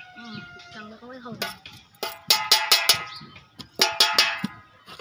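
A wooden pestle pounding raw green jujubes (kul) on a plate to crush them for kul makha: a run of sharp knocks about two seconds in and another around four seconds in, each ringing briefly.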